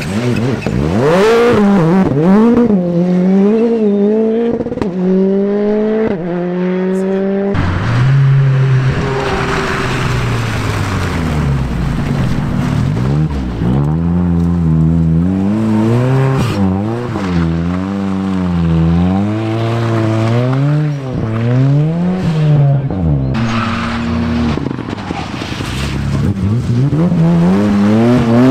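Rally cars driven hard on a loose-surface stage, three in turn, with the engine note repeatedly climbing and dropping as they rev, change gear and lift for corners.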